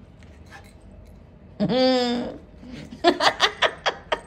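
One loud, drawn-out tone with a steady pitch about a second and a half in, then a woman laughing in a quick run of chuckles near the end.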